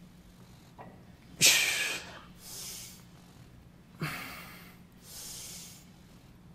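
A man breathing hard through pec deck fly reps: a sharp, forceful exhale about a second and a half in and another at four seconds, each followed by a softer inhale.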